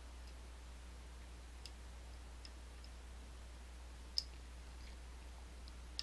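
Small metallic ticks from a lock pick working the pins of an Assa Twin Exclusive cylinder lock under tension, with one sharper click about four seconds in.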